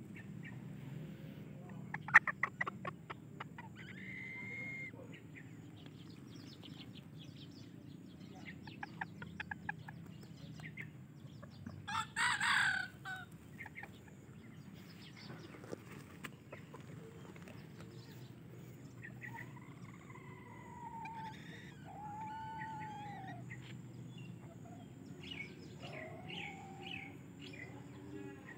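Serama bantam chickens clucking in short sharp notes, with one brief, loud crow from the rooster about halfway through.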